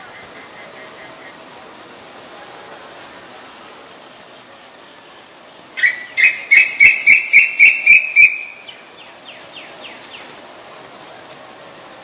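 Female Asian koel calling: a rapid run of about ten loud, evenly spaced notes, about four a second, edging up slightly in pitch. Fainter, quicker notes trail off after it.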